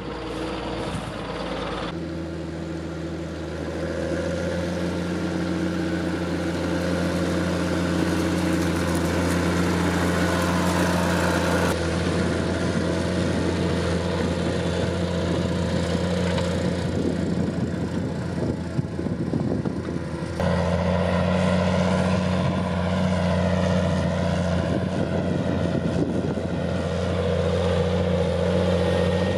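John Deere 7720 tractor's six-cylinder diesel engine running steadily at working revs while pulling a plough. The engine note changes abruptly a few times, between shots.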